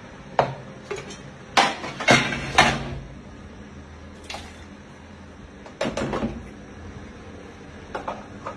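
Kitchen clatter: a plastic grater, a plastic basin and an aluminium pot knocking and scraping against each other and the worktop while tomatoes are grated and the purée is tipped into the pot. Sharp knocks come scattered throughout, loudest in a quick run of three about two seconds in.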